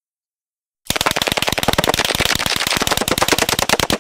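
9mm submachine gun firing one long full-automatic burst, about ten shots a second, starting about a second in and still going at the end.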